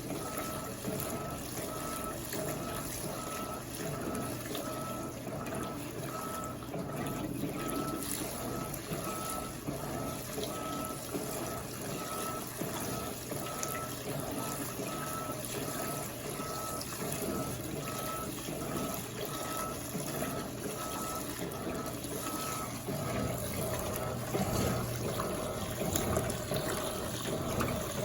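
Washing machine filling with water: a steady rush and trickle of inflowing water. A faint short tone pulses about once a second and stops a few seconds before the end.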